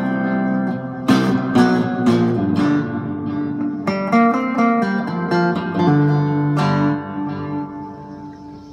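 Electric cigar box guitar strummed and picked, a run of chords with sharp strums, ending on a last chord that rings and fades away near the end.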